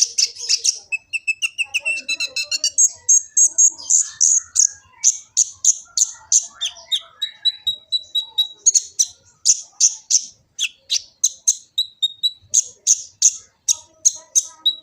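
A kolibri ninja sunbird singing a fast, high song of sharp chirps, several notes a second. A thin held whistle runs through the notes from about halfway in.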